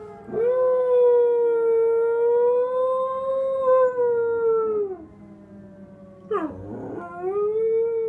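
Samoyed howling: one long howl of about four and a half seconds that falls away at the end, then a short sharp cry and a second, shorter arching howl near the end. Beneath it runs the faint steady tone of a fire station alert siren that the dog is answering.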